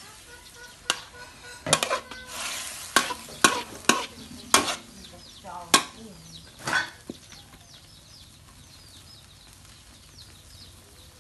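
A spatula scraping and knocking in a large wok as minced pork is stir-fried, over a light sizzle. The strokes come irregularly and stop about seven seconds in, leaving only the sizzle.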